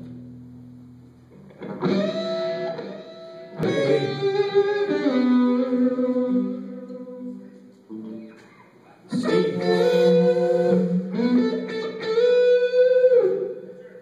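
A rock band's guitars play short phrases of ringing, sustained chords, stopping and starting again about three times, as the band checks its sound on stage.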